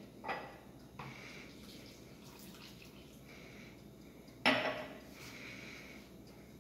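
Hand mixing flour into cookie dough in a plastic bowl: soft rustling and scraping, with a sharp knock about four and a half seconds in and a smaller one near the start.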